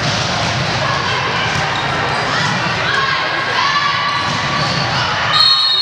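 Volleyball rally in a gym: the ball being played, with players' voices calling out and some crowd noise. A referee's whistle blows briefly near the end.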